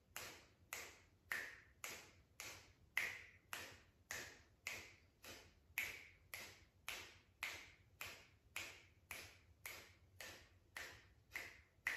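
Rapid, short, sharp exhalations forced out through the nose in an even rhythm, about two a second: breath of fire (Kapalbhati) pranayama.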